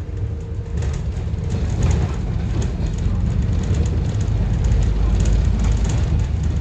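Scania N230UD double-decker bus's engine heard from on board, running steadily as the bus drives along, growing louder about a second in, with short rattles from the interior.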